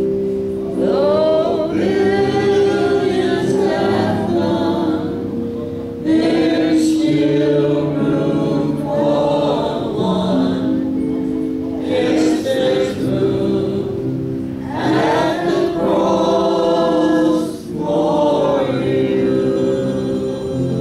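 Congregation singing a gospel hymn in long, drawn-out phrases over sustained keyboard chords.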